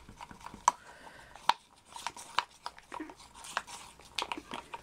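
Wooden stir stick scraping and knocking against the inside of a small plastic cup while pigmented resin is mixed: irregular clicks and short scrapes, with a sharper knock about one and a half seconds in.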